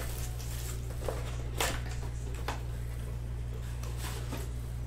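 Trading-card boxes and cards being handled: a few soft clicks and rustles of cardboard and plastic over a steady low hum.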